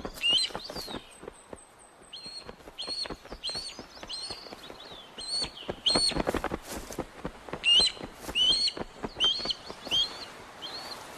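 Ospreys calling: runs of short, sharp, high whistled chirps with brief gaps between them. This is calling in a confrontation at the nest, as the female drives off an intruding male.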